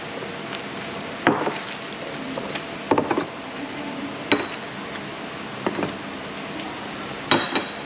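Ceramic plates and bowls clinking and knocking on a wooden table, about five sharp clinks a second or two apart, some with a short ring.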